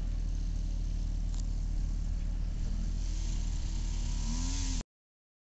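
A model airplane's engine running at a distance, rising and falling in pitch as it revs from about three seconds in, under a steady rumble of wind on the microphone. The sound cuts off abruptly near the end.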